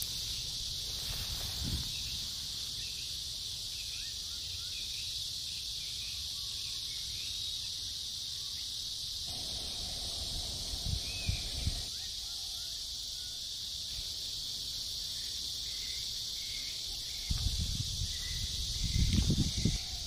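A steady, high-pitched chorus of insects singing without a break. A few low rumbles come in about halfway through and again near the end.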